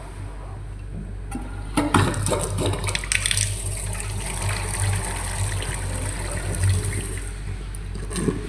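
Sink faucet turned on with a few clicks of handling about two seconds in, then water running steadily from the tap, with a short knock near the end.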